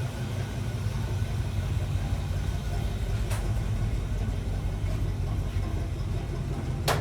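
1959 Pontiac Catalina V8 idling steadily with a low rumble; it still has a misfire. Two sharp clicks sound, about three seconds in and near the end.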